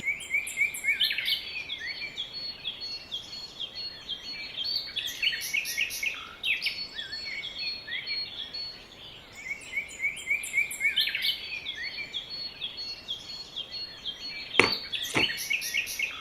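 Small birds chirping continuously in a busy chorus of short, quick calls. Two sharp knocks sound near the end, the first the loudest sound in the stretch.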